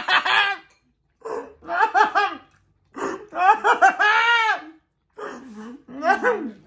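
Hearty human laughter in about six bursts, broken by short pauses, with one longer peal near the middle.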